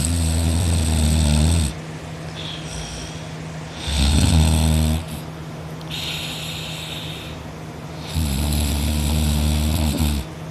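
A person snoring in his sleep: three loud snores about four seconds apart, each lasting one to two seconds, with quieter breaths between them.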